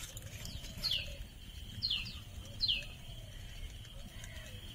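A bird calling: short, sharp chirps that fall in pitch, three of them about a second apart, over a faint steady high whine.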